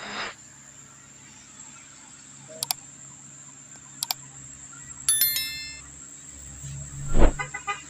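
Edited-in subscribe-button sound effects: two mouse clicks about a second and a half apart, then a bright bell-like notification chime, then a falling whoosh near the end. Faint road traffic and a steady high whine continue underneath.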